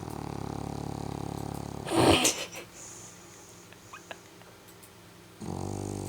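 A dog snoring. A long, fluttering snore breaks off in a loud noisy burst about two seconds in, and a second snore starts near the end.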